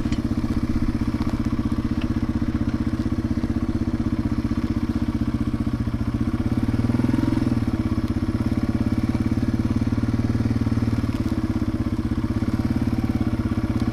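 Yamaha TW200's single-cylinder four-stroke engine running steadily at low speed, with a brief rise in revs about seven seconds in.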